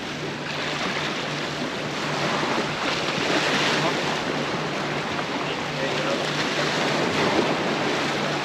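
Small waves washing and breaking against the rocks of a jetty, swelling about three seconds in, with wind buffeting the microphone.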